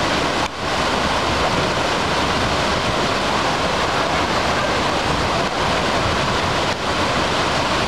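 Floodwater of Taughannock Creek pouring over a wide rock-ledge cascade, a loud, steady rush of water in spate after heavy rains, briefly dipping twice.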